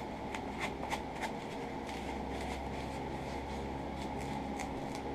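Faint rustling and light taps of hands pressing foam pipe insulation onto a leather apron's neck strap, most of them in the first second and a half, over a steady background hum.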